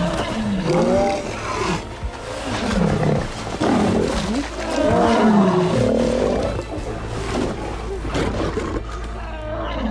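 Lions snarling and roaring in a fight: a run of growls that rise and fall in pitch, over a low film-score drone.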